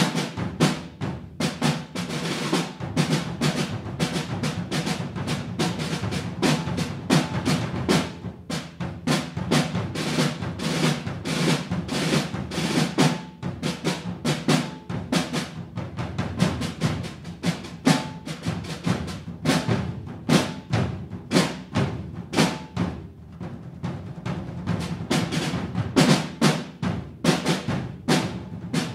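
Drum trio in rudimental style on snare drums and wooden-shell field drums played with sticks: a fast, dense stream of stick strokes and accents with drum rolls.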